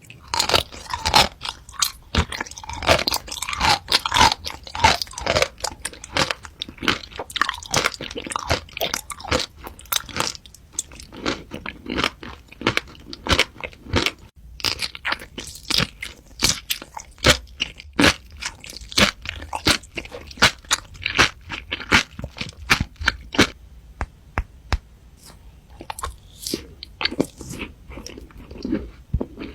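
Close-miked eating of crunchy food: a person biting and chewing with rapid, crisp crunches, thinning out a little near the end.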